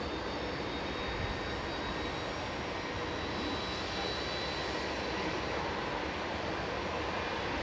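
Turbofan engines of taxiing Airbus A320-family airliners at low thrust: a steady hiss with a faint high whine.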